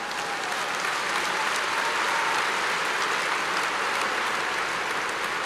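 Large stadium crowd applauding, swelling over the first two seconds and then holding steady.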